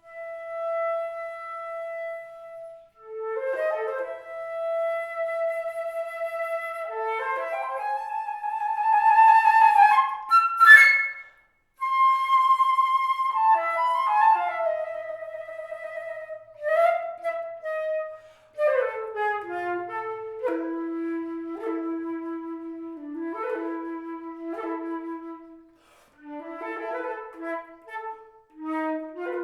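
Flute playing a melody of clear held notes mixed with quick runs and grace notes, moving down to a long low note near the middle.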